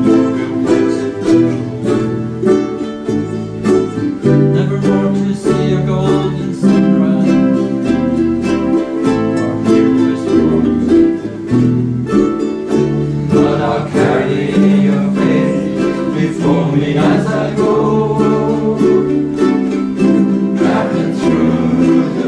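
Ukuleles strummed together by a small group playing a song, with a bass line of sustained low notes stepping underneath the chords.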